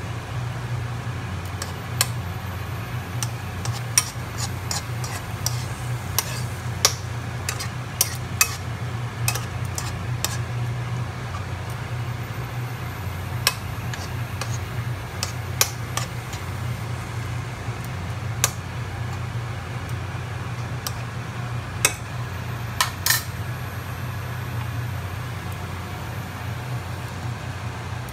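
Metal spoon clinking and scraping against a nonstick pan while corned beef is stirred as it fries in oil: irregular sharp clicks over a steady low hum.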